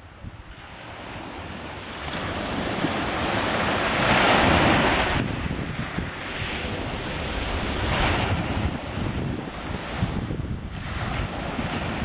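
Small sea waves breaking and washing up a pebble beach in surges, the loudest about four seconds in and another near eight seconds, with wind rumbling on the microphone.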